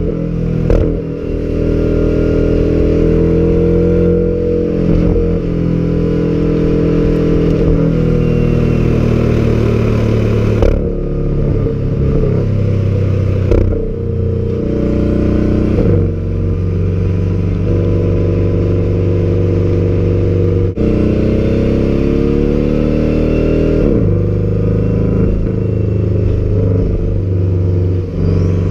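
Porsche sports car engine and exhaust driven hard, the revs climbing and then dropping sharply at each gear change several times, with stretches of steady running in between.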